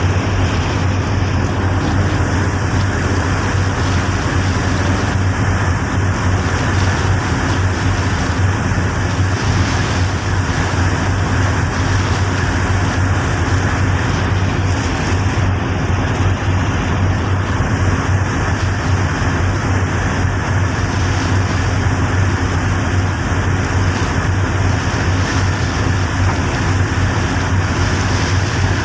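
Boat engine running steadily with a low drone, under a constant rush of wind and water noise.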